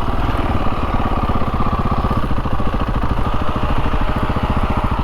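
Trail motorcycle engine idling with a steady, even beat.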